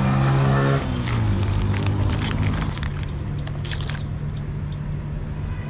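Road traffic: a motor vehicle's engine close by runs loud and steady, then drops in pitch as it goes past, about a second in, leaving a steadier engine hum.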